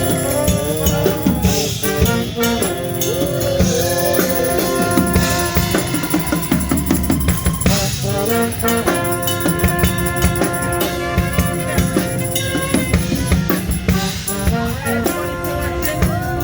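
Live band with brass horns and a drum kit playing; the horns hold sustained notes over steady drumming.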